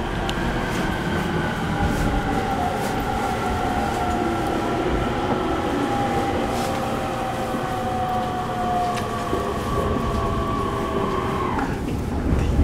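Hitachi IGBT VVVF inverter of an equipment-renewed E231 series electric train whining under braking as the train slows, heard inside the passenger car. Its several tones slide slowly down in pitch over the rumble of wheels on rail. Shortly before the end the whine cuts off.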